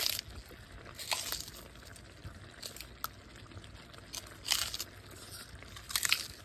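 Fresh green stalks snapped by hand, a handful of short crisp snaps, the sharpest about four and a half and six seconds in.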